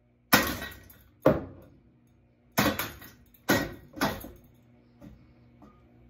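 Hammer striking a ceiling fan's motor housing: five hard blows within about four seconds, each a sharp crack that rings off briefly, then one lighter knock near the end.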